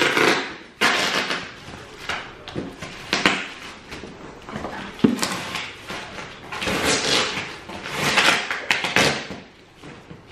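A cardboard box being opened by hand: a run of tearing and rustling of tape, cardboard flaps and paper, with a sharp knock at the start and another about five seconds in.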